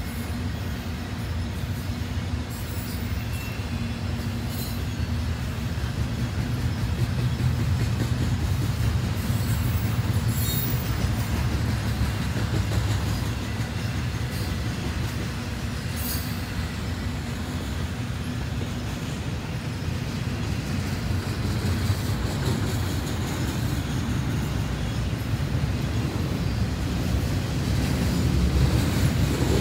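Double-stack container cars of a CN freight train rolling past: a steady low rumble of steel wheels on rail, with a few brief high-pitched squeaks from the wheels.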